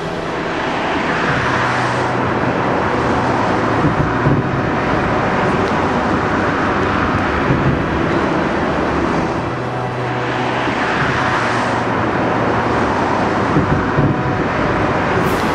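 Road traffic on a busy multi-lane road: a steady rush of tyre and engine noise, swelling several times as cars pass close by.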